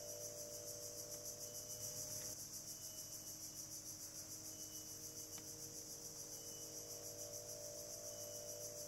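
Dense insect chorus: a high, rapidly pulsing buzz over a faint steady lower drone, with a faint short high note repeating about every second and a half and two soft clicks.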